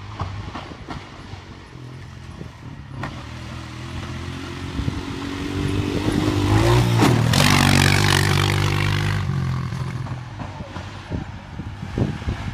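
ATV engine riding past: it grows louder as it nears, its pitch rises as the throttle opens at the loudest point about halfway through, with a rush of churned sand, then it fades as the quad rides away.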